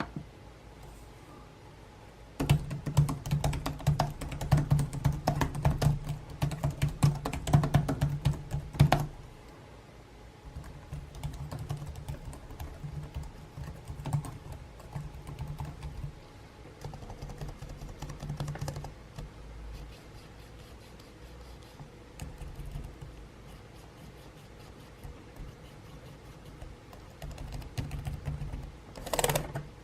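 Keys on an Asus TUF Gaming FX505-DU laptop keyboard being typed on. Fast, dense clicking starts a couple of seconds in and lasts about six seconds, then gives way to lighter, sparser keystrokes, with another fast flurry near the end.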